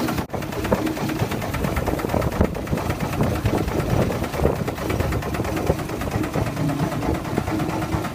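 A boat's engine running steadily with a busy, rhythmic mechanical clatter.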